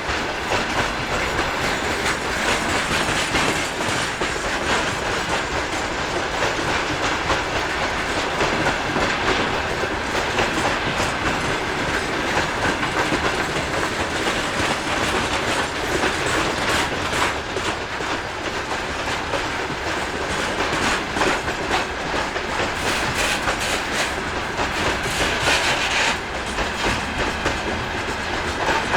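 Freight train rolling past at steady speed, its wagon wheels clattering continuously over the rail joints.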